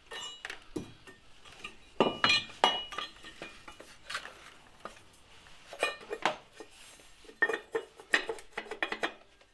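Irregular metallic clinks and knocks as a cast aluminium top timing cover is handled and set into place on a Renault D4F petrol engine. The loudest knocks come about two seconds in.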